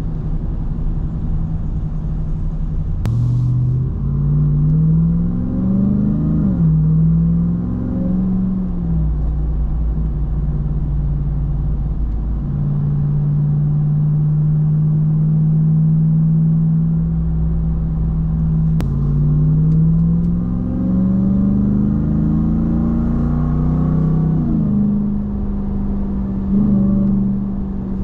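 Ram TRX's 6.2-litre supercharged V8 in sport mode pulling hard twice, its note rising through the gears with quick upshifts between rises. In between it runs at a steady cruise.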